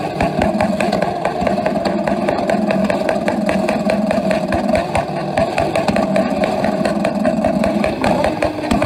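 Several motorcycle engines held on the rev limiter, a loud continuous stutter as the ignition cuts in and out, with crackling afterfire from the exhausts.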